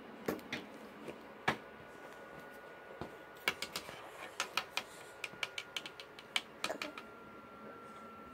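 Light, irregular clicks and taps of a wooden pencil knocking on a wooden tabletop and against a cat's paws and claws as the cat bats at it, with a quick flurry of taps in the middle.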